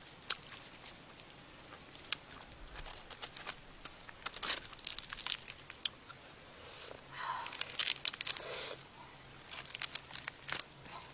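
Grilled snake's charred skin and meat being torn apart by hand and bitten, with crackling and crunching in irregular short bursts.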